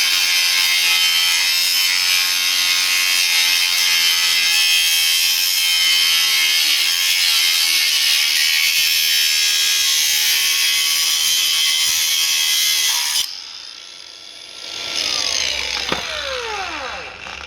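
A handheld power tool working on a brass water meter, running loud and steady with a harsh hiss, then cutting off abruptly about 13 seconds in. Near the end a falling whine follows as the tool winds down.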